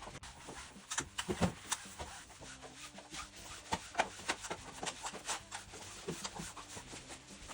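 Irregular rubbing and scraping strokes mixed with scattered clicks and light knocks, uneven in strength, with the sharpest few near the first and fourth seconds.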